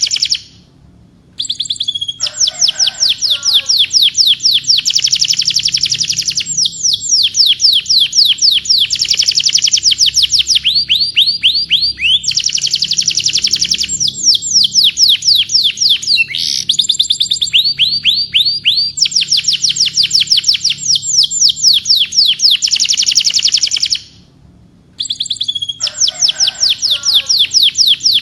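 Domestic canary singing: long trills of rapidly repeated high notes, each run with its own pattern, one changing into the next every few seconds. The song breaks off briefly twice, about a second in and again near the end.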